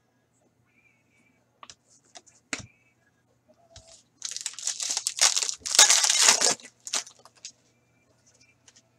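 Wrapper of an Artifacts hockey card pack being torn open and crinkled for about two seconds, the loudest sound here, after a few light clicks of cards being handled.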